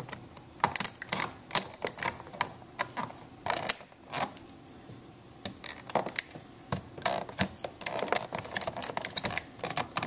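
Flat-blade screwdriver prying the plastic power-window master switch panel out of a Buick Rendezvous door armrest: a string of irregular clicks, knocks and scrapes of metal on plastic as the retaining clips are worked loose.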